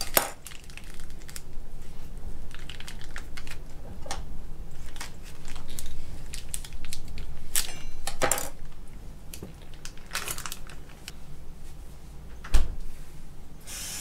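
Hands handling ground venison at a kitchen counter: small crinkles of its plastic wrapping and light clicks and knocks of a knife and meat against a ceramic plate and steel bowl. One sharper thump comes near the end, followed by a short rush of water from the kitchen tap.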